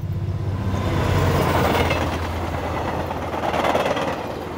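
A train going by: a steady low rumble with rolling wheel noise that swells about a second in and again near the end.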